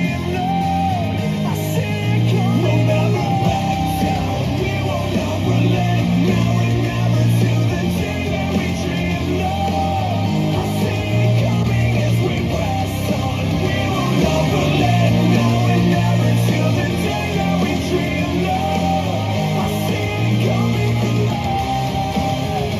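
A rock song with singing, guitars and a steady bass line, played through the Tribit StormBox Micro 2 portable Bluetooth speaker as a sound test.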